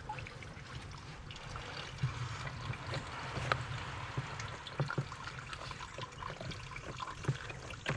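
Water trickling and lightly splashing as a hand gropes down a flooded hole among tree roots for a mud crab, with scattered small clicks and knocks.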